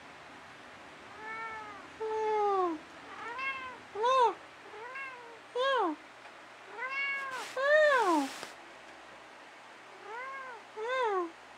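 Domestic cat meowing over and over, about ten short rising-and-falling meows, several in quick pairs, the loudest about eight seconds in.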